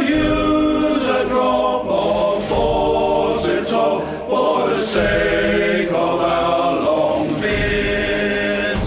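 Male voice choir singing a chorus in held chords that change about once a second.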